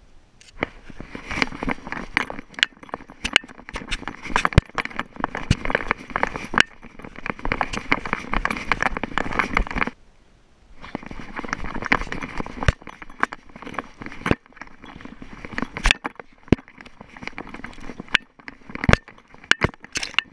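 A Schipperke trotting over rocky ground and through dry grass with the camera riding on its body: a dense run of crunching, rustling, clinking and rattling. It breaks off for about a second near the middle, then goes on as sparser sharp clicks and knocks.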